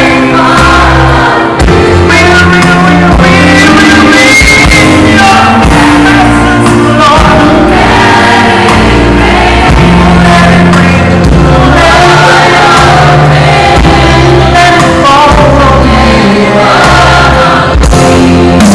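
A choir singing a gospel song at full voice over a deep bass line, the bass notes changing every second or two.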